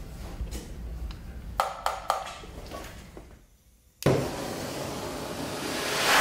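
A few clicks and knocks of handling the gas cylinder's regulator, then, about four seconds in, a lit gas welding torch comes in suddenly with a steady hiss of burning gas that grows louder near the end.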